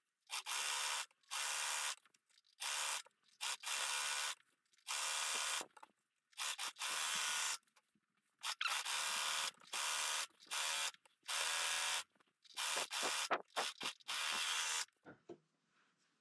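Brother 4234D overlocker stitching a seam in a dozen or so short bursts of about a second each, with brief pauses between them, stopping about fifteen seconds in.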